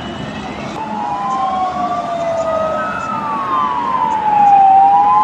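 Sirens of several emergency vehicles wailing together, each slowly rising and falling in pitch, growing louder toward the end, over the rumble of road traffic.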